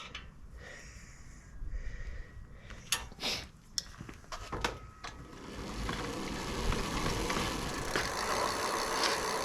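A few sharp clicks and knocks from handling the e-bike's rear wheel area, then from about halfway a steady whirring of the rear wheel and chain being spun.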